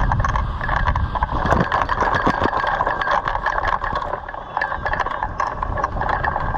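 Wind rumbling on the microphone of a camera mounted on a hang glider, easing off about a second and a half in, with many quick clicks and rattles from the glider as it is carried across the sand.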